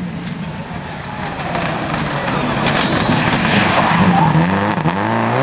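A Subaru Impreza rally car's turbocharged flat-four engine grows louder as the car approaches at speed and passes close by, with tyre noise on the wet tarmac. Near the end the engine note climbs steadily as the car accelerates away.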